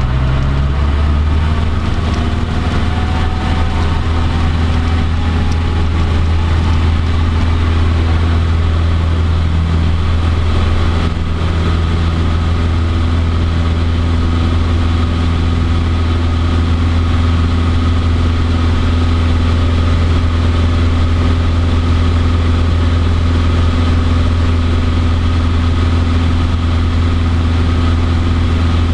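Cessna 150D's Continental O-200 four-cylinder engine and propeller heard from inside the cabin, rising in pitch at the start as full power comes in, then running loud and steady through the takeoff roll and climb-out of a touch-and-go.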